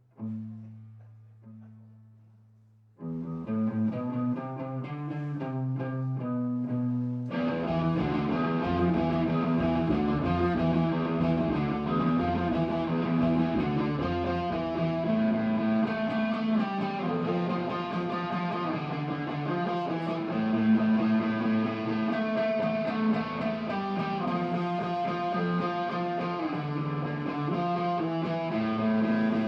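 Live punk rock song intro: a few single low bass notes ring out and fade, electric guitar comes in about three seconds in, and the full band with drums and distorted guitar kicks in about seven seconds in, playing steadily on.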